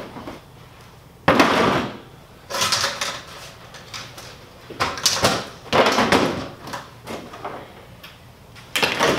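Ice fishing gear being handled and packed into a plastic sled: about five separate bouts of knocking, clunking and rustling, each lasting about half a second to a second.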